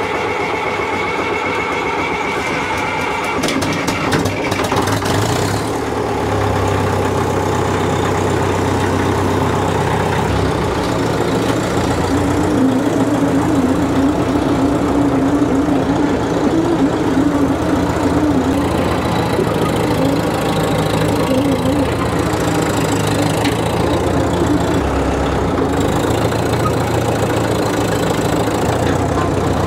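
Small crawler tractor's engine running just after starting, its exhaust stack puffing white smoke, then running on steadily as the tractor is driven.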